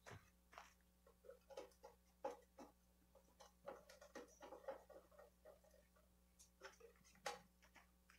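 Near silence, broken by faint, scattered small clicks and taps, the most distinct about two seconds in and near the end.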